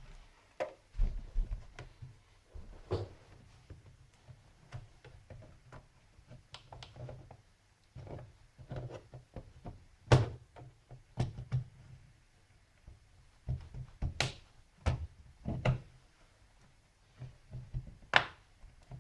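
Irregular clicks and knocks from a plastic laptop case being worked apart by hand, its small snap latches popping loose; the sharpest snaps come a little after the middle and near the end.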